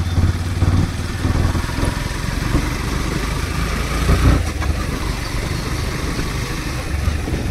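Motorcycle engine running steadily on the move, with road and wind noise.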